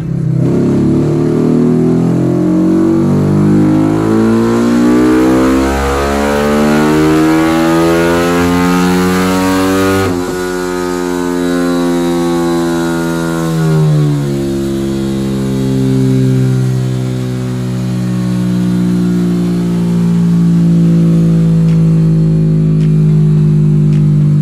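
Yamaha Y15ZR's 150 cc single-cylinder four-stroke with a cut-down stock exhaust, run on a Dynojet chassis dyno. It is held at full throttle with revs climbing steadily for about ten seconds, then the throttle is shut and the revs fall away over a few seconds before it settles to a steady run.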